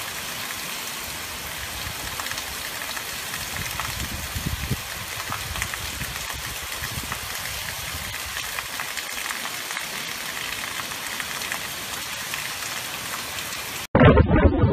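Hurricane rain and wind: a steady hiss of heavy rain with gusts swelling and easing. About a second before the end it cuts suddenly to a louder, duller rush of wind and rain.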